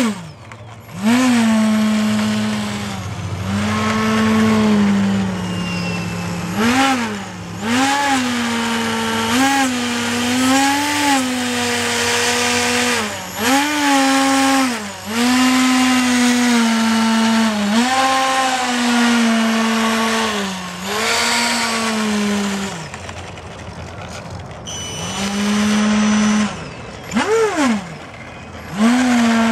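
Electric motor and propeller of a radio-controlled foam model plane taxiing. Its whine rises and falls in pitch again and again as the throttle is opened and eased, dropping away briefly between bursts.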